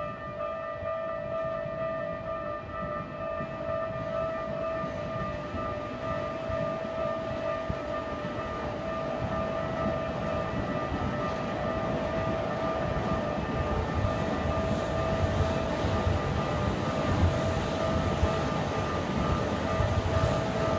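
Level-crossing warning bell ringing steadily in high repeating tones. From about halfway through, the rumble of an approaching Keikyu train rises beneath it and grows louder toward the end.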